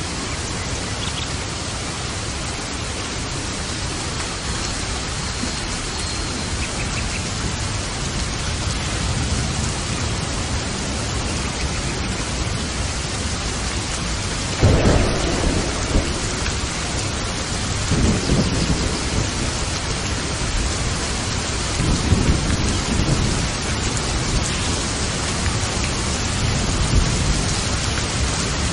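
Steady rain hiss with thunder: a sudden thunderclap about halfway through, followed by low rumbles of thunder every few seconds.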